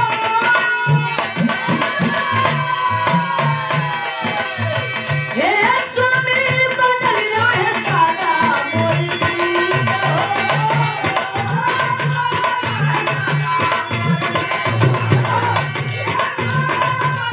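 Live Bhojpuri birha folk song: a woman singing into a microphone in long, gliding phrases, with drums keeping a steady repeating beat beneath.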